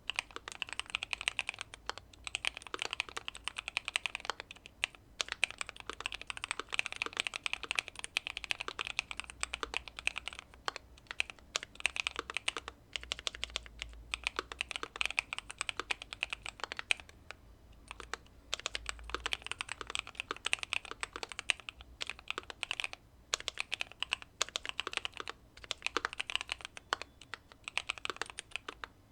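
Continuous fast typing on a Keychron Q2 mechanical keyboard with factory-lubed Pearl Lemon switches, tape-modded and case-foamed: a dense run of key clacks with a few brief pauses.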